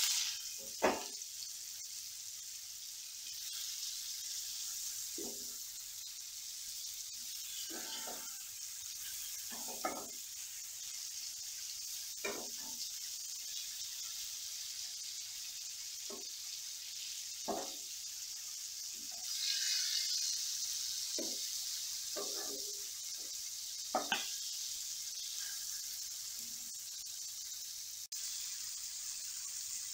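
Red snapper pieces sizzling steadily in a little oil in a nonstick frying pan. A spatula scrapes and knocks against the pan every couple of seconds as the fish is moved and turned. The sizzle swells briefly about two-thirds of the way through.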